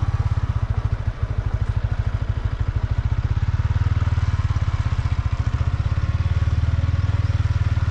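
A motor vehicle's engine running steadily, a low, rapid, even throb with no change in speed.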